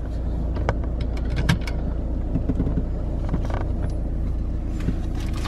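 Steady low rumble of a car's engine and tyres heard from inside the cabin while driving at town speed, with a few faint clicks.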